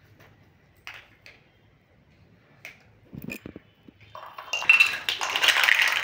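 Plastic toy fruit pieces clicking against each other and the floor a few times, then a cardboard box of them tipped out, the pieces clattering loudly onto a hard stone floor for about two seconds near the end.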